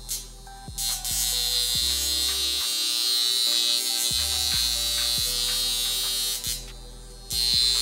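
A small handheld electric motor buzzing, starting about a second in, stopping briefly near the end and then starting again. Background music plays underneath.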